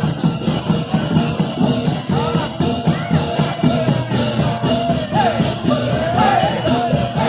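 Loud rhythmic percussion music with fast, evenly repeating metallic strokes and low pitched notes; wavering, voice-like glides join in during the second half.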